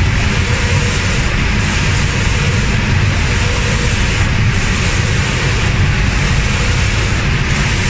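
Automatic spray-painting machine at work: a continuous loud hiss of the compressed-air spray guns over the low rumble of the booth's machinery and air extraction. The highest part of the hiss dips briefly about every second and a half.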